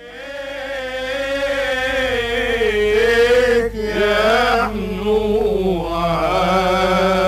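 Unaccompanied Egyptian religious chant (tawshih) sung by male voices: long held notes that waver and twist in ornamented melisma, with no instruments. There are short breaks for breath about halfway through.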